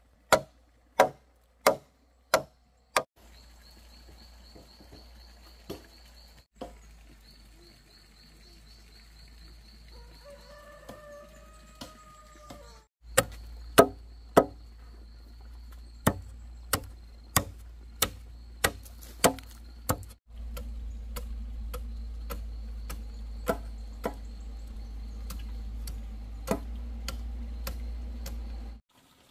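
Machete chopping wood in runs of sharp, evenly paced strokes, about one and a half a second, as a wooden stake's end is cut to a point. A rooster crows once near the middle, over a faint steady insect buzz.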